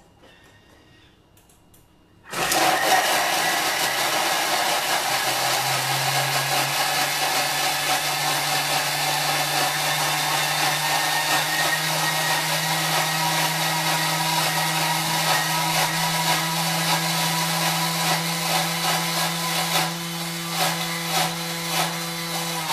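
Thermomix running at its top blending speed (speed 10), grinding fresh curry paste ingredients with oil and water. It starts abruptly about two seconds in and runs loud and steady, its motor hum rising a little a few seconds after the start.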